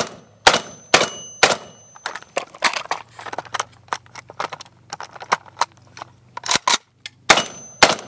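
Pump shotgun fired rapidly at steel plates, about two shots a second, each hit followed by a ringing plate. Then several seconds of clicks and clatter as shells are loaded one at a time and the action is worked, before firing picks up again near the end.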